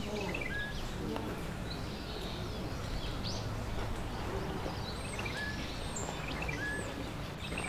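Outdoor ambience: small birds calling with short, scattered chirps over a steady low background rumble.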